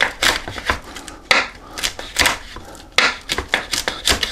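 Chef's knife rough-chopping dried ancho chilies on a wooden cutting board: a quick, irregular run of blade strikes knocking on the board, with a brief pause about a second in.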